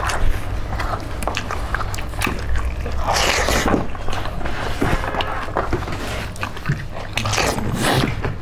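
Close-miked eating by hand: chewing and crunching of chicken feet, with many short clicks and smacks of fingers working rice on banana leaves, over a steady low hum.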